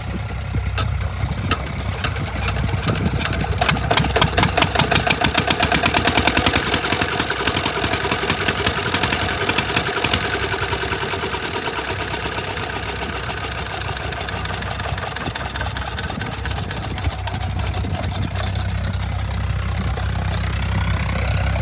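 8 hp single-cylinder diesel engine of a water pump set running with a rapid, even beat of firing strokes. The beat is loudest a few seconds in, then settles to a steadier run.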